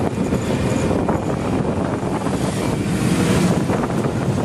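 Trieste–Opicina tram running along street track: a steady rumble of wheels on the rails, with air rushing past the microphone.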